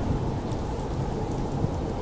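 Snowstorm wind as a steady, deep rumbling rush, with faint sparse crackles from a wood fire.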